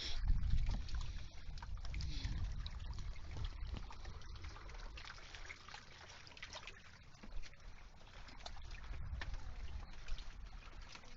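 Water lapping and trickling, with scattered small splashy ticks over a low rumble.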